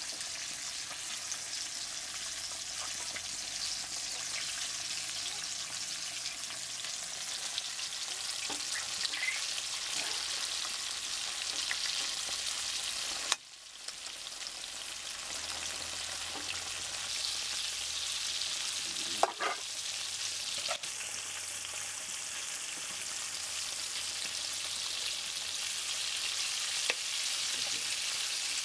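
Quail pieces deep-frying in hot oil in an iron karahi over a wood fire: a steady sizzling hiss with occasional small clicks from a metal spoon stirring them. The sizzle breaks off for a moment about halfway through, then carries on.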